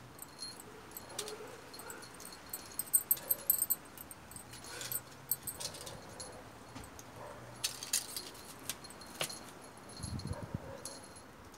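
Two kittens at play: scattered light clicks and metallic jingling, with a cluster of sharper clicks about three seconds in.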